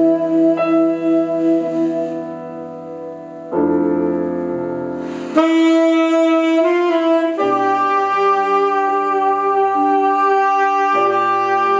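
Tenor saxophone and grand piano playing slow jazz. The saxophone holds long notes over sustained piano chords, with new chords struck every few seconds.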